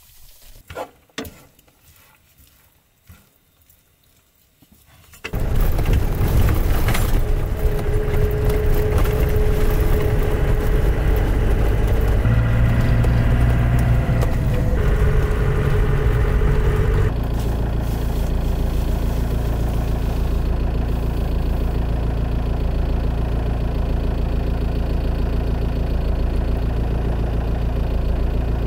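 A few soft clicks in near quiet, then about five seconds in a camper van's engine and road noise start suddenly, heard loud and steady from inside the cab with the window open. A steady whine rides on top for several seconds, and the level drops slightly about halfway through.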